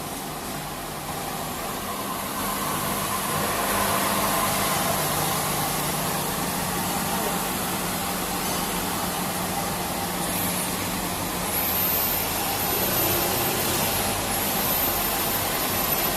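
LXDM-200 end milling machine for aluminium and PVC profiles running, giving a steady mechanical hum and noise that grows louder a few seconds in. In the second half a very high, thin whine rises and holds, twice.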